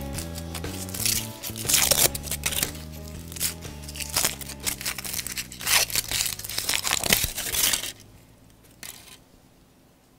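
Foil wrapper crinkling and tearing as it is peeled off a chocolate surprise egg, in quick irregular rustles that stop about 8 seconds in. Background music plays under the first part.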